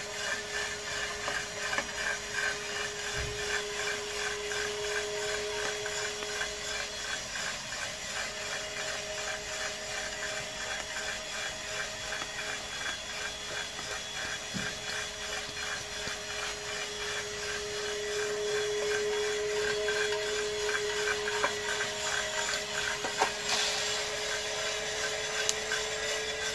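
Homemade gas-fired drum coffee roaster running near the end of the roast. Beans tumble and rasp in the turning drum in an even rhythm over a steady hum, with a few sharp clicks near the end.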